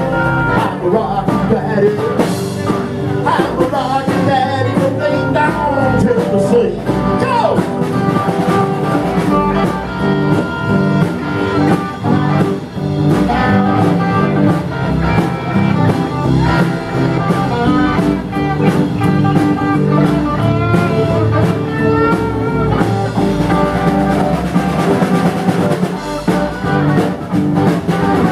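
Live rockabilly band playing: electric guitar, upright bass, drums and strummed acoustic guitar.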